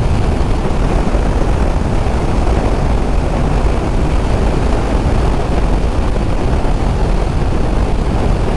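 Steady rush of wind and riding noise on the rider's microphone from a Honda VFR800F motorcycle at speed.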